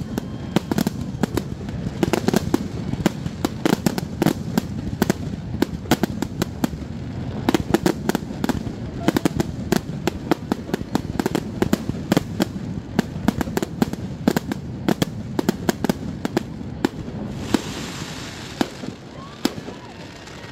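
Fireworks display: a rapid barrage of aerial shells bursting and cracking in quick succession, with a short hiss about eighteen seconds in. The bangs thin out near the end.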